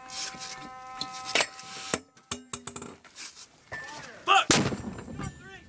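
M327 120mm towed rifled mortar firing: a sharp report about a second and a half in, and a louder blast about four and a half seconds in that echoes briefly.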